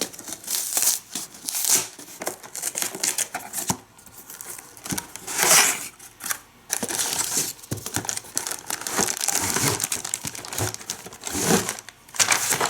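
Packaging of a boxed toy track set being opened and unpacked: irregular crinkling and rustling, louder about five and a half seconds in and again near the end.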